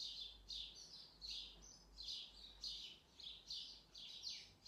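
A bird chirping over and over, faint, with short high notes about two to three a second, some sliding down in pitch.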